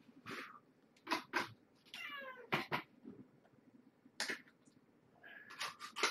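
A kitten gives one short, falling meow about two seconds in, among short sharp clicks and taps close to the microphone.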